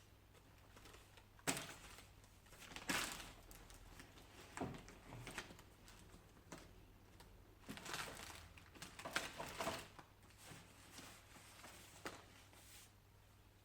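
Scattered handling noises: light knocks, clicks and short rustles of paper and objects being picked up and set down, over a faint steady hum.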